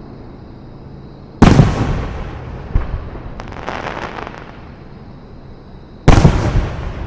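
Fireworks display: two loud shell bursts about five seconds apart, each booming and then echoing away. Between them come a smaller pop and about a second of crackling.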